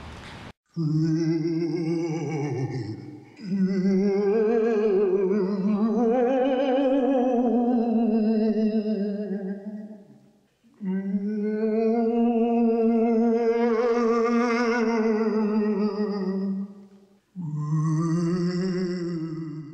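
A single voice singing long, held notes with a wavering vibrato, in four phrases separated by brief breaks.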